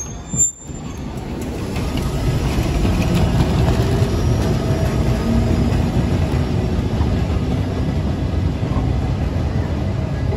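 Vintage tram running past on street track: a steady low rumble of wheels and motors that builds over the first two seconds and then holds. A brief sharp high-pitched sound comes about half a second in.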